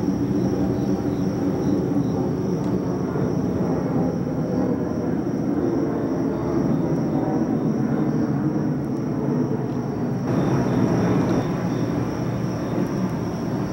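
Steady, distant low engine rumble, with summer night insects trilling in a thin high chorus and faint rhythmic chirps above it. The rumble shifts abruptly about ten seconds in.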